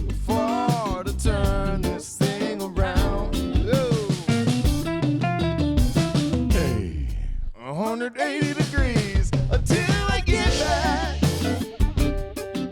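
Mixed song playing: drum kit, guitar and bass under a wavering lead melody, with a short break and a falling glide about seven seconds in.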